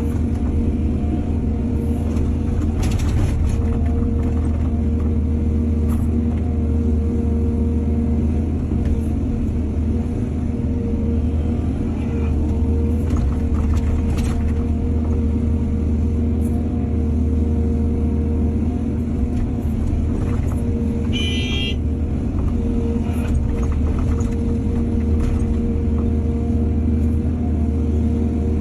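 Excavator's diesel engine running steadily with a deep hum, with a few faint knocks and a brief high-pitched tone about three quarters of the way through.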